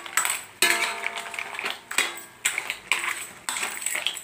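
Metal utensil clanking and scraping against a metal wok while crabs, mussels and shrimp are stirred, a sharp knock about every half second to a second.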